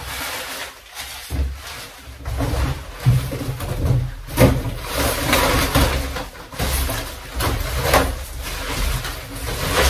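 Plastic packaging crinkling and a cardboard box rustling and scraping as packing material is handled, with several louder crackles and knocks.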